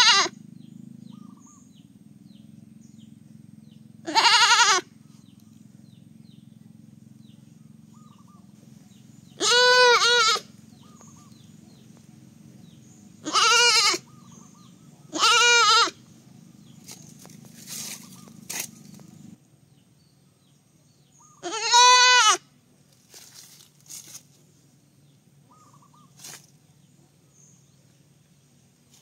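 Baby goat (kid) bleating, about five short wavering calls several seconds apart, with a few faint clicks in between.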